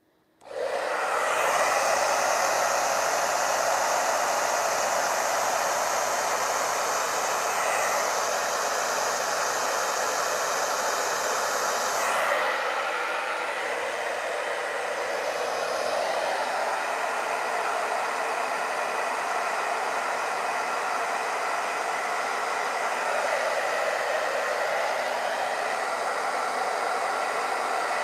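Handheld hairdryer switched on about half a second in and running steadily, blowing across wet poured acrylic paint, with a couple of brief shifts in its tone.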